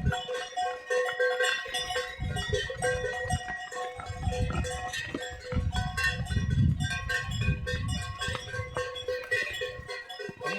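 Cattle bells clanking and ringing over and over as a herd of cattle is driven along, with low rumbling noise underneath.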